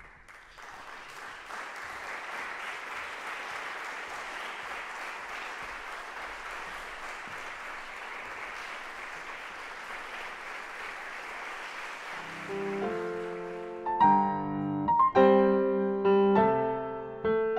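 Audience applauding steadily for about twelve seconds. Then a Fazioli concert grand piano begins playing, with loud, sharply struck chords from about two seconds later.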